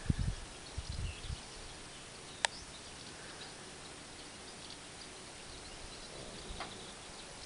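Quiet outdoor ambience with faint scattered bird chirps. A few low thumps in the first second or so and a single sharp click about two and a half seconds in.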